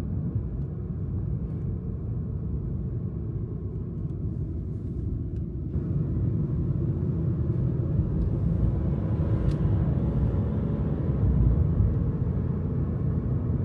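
Steady low rumble of a car on the road, engine and tyre noise, getting a little louder about halfway through.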